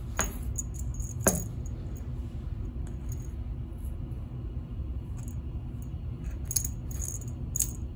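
Cat wand toy being jiggled against a door, its crinkly ribbon strands rustling and its small metal clasp clinking in short, irregular ticks, over a steady low hum.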